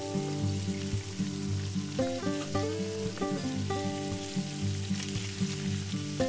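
Salmon fillets sizzling in hot oil in a frying pan, with background music of changing notes over it.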